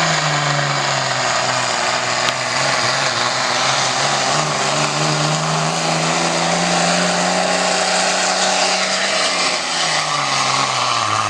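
Diesel pulling truck's engine running at high revs under load, dragging the pulling sled; its pitch holds steady with a brief dip about two seconds in, then falls over the last couple of seconds as the engine winds down.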